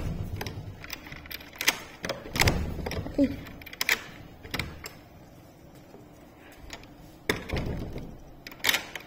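Handheld phone being carried while walking: scattered light clicks and knocks of handling, with a few dull thumps and a brief falling squeak about three seconds in.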